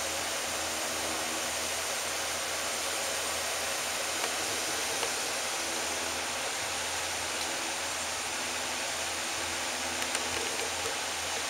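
Steady, even hiss of background noise with a few faint clicks, at about four, five and ten seconds in.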